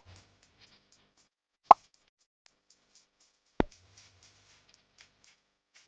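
Rubber balloons popping one at a time: sharp single pops about every two seconds, with faint crackles and ticks in between.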